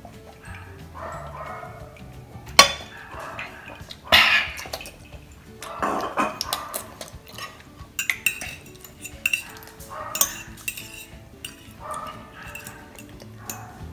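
A glass mug is set down with a knock, then a metal fork clinks and scrapes against a glass baking dish of noodles in quick runs of clicks. A dog makes a few short sounds in the first couple of seconds.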